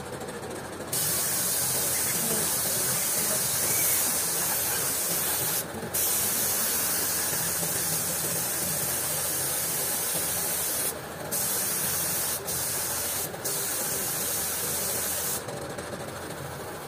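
Gravity-feed paint spray gun hissing as it sprays red paint onto motorcycle parts, starting about a second in and running in long passes, with a short break near six seconds and three quick ones a little before the end. A motor runs underneath.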